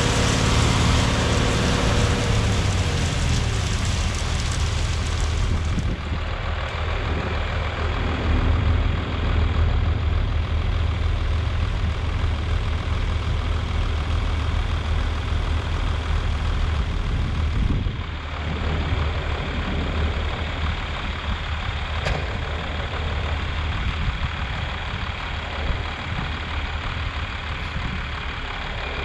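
Heavy diesel engine of harvest machinery running steadily, with a constant low hum.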